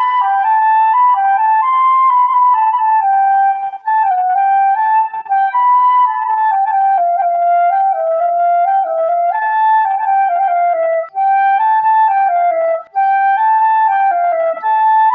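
Music: a solo flute-like woodwind playing a stepwise melody, with a few short breaks between phrases.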